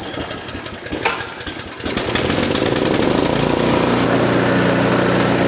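Snowblower's small gasoline engine running, rough and uneven at first, then speeding up about two seconds in and holding a steady high speed.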